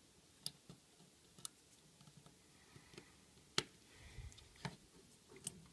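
Faint, sharp clicks of small repair tools against the opened iPhone 5's metal frame and screws as the logic-board screws are taken out. There are about five scattered clicks, the loudest about three and a half seconds in, with a soft low bump just after it.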